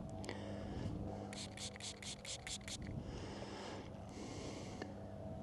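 Fingers rubbing soil off a small lead find held in the palm: a quick run of about eight short rubs, some five a second, then a couple of longer, softer rubs.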